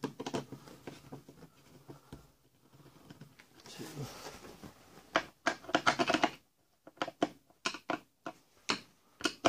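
Irregular clicks, taps and scrapes of a screwdriver and hand-handled hardware on a deck hatch fitted with a solar vent, as its screws are tightened. A short rasp comes about four seconds in, and a dense run of clicks follows in the middle.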